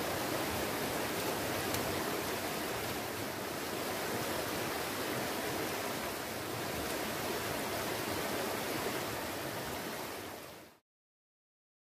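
Shallow river rushing steadily over stones, a constant water noise that cuts off abruptly near the end.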